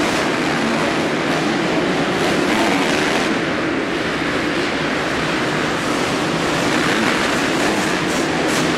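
Several motocross bikes racing on an indoor dirt track, their engines revving and overlapping in a dense, steady din inside the arena hall.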